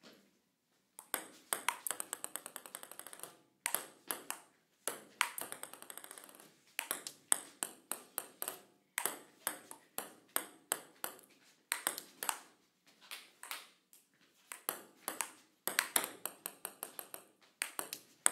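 Table tennis ball bouncing in repeated runs of sharp, hollow clicks. Each run starts with loud clicks that then come faster and fainter, and short pauses fall between the runs.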